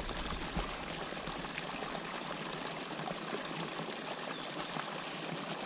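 Water pouring steadily into a pond from an inflow, a constant splashing rush.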